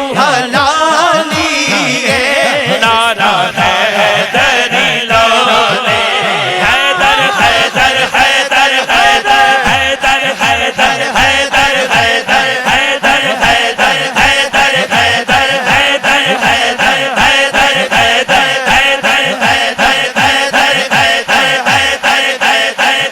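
Male voices chanting together in a devotional naat over a steady, even beat of about two to three strokes a second.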